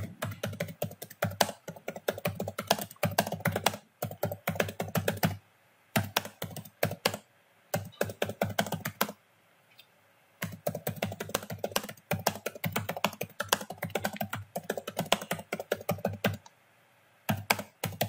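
Typing on a computer keyboard: fast runs of key clicks in bursts of a few seconds, broken by short pauses of about a second.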